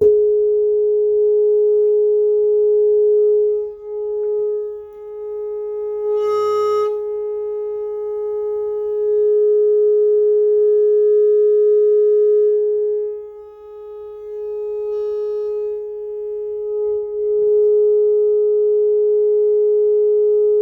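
Steady test tone of about 400 Hz played through the Kenwood KR-7600 receiver, its loudness swelling and dipping several times. A short crackle sounds about six and a half seconds in.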